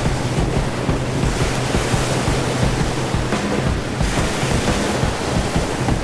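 Wind-driven lake waves breaking and washing up on a sandy beach, with strong gusting wind buffeting the microphone.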